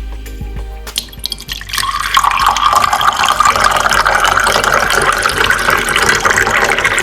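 Liquid poured in a steady stream into a container, starting about two seconds in, its pitch rising slightly as the vessel fills.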